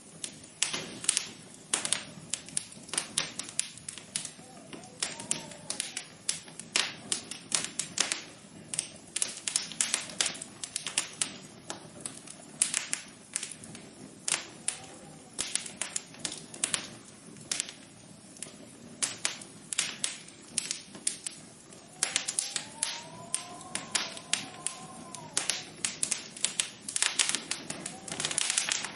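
A dense, irregular run of sharp light taps and clicks, bunched closely at times and sparser elsewhere, over a soft steady background hiss, with a faint rising-and-falling tone a few times.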